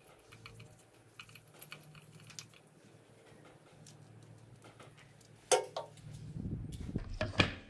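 Faint clicks and light metal clinks of a spark-plug wrench turning a spark plug out of a Suzuki Hayabusa's cylinder head, with sharper metal clacks between about five and a half and seven and a half seconds in as the wrench and plug are drawn out of the plug well.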